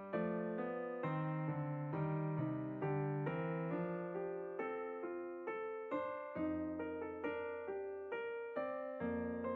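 Background music: a gentle piano-like keyboard tune, notes changing two or three times a second.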